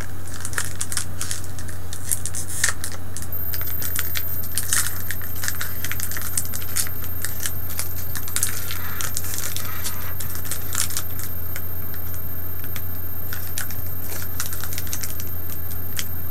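Foil Pokémon booster pack wrapper crinkling and crackling in the hands as it is worked open, the crinkles thinning out near the end, over a steady low hum.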